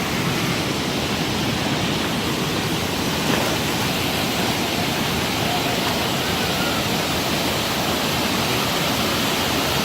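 Waterfall rushing: a steady, even noise of falling water close by.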